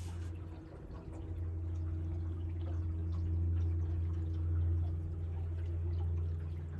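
Boat motor running steadily at low speed, a constant low hum, with faint water lapping and small ticks over it.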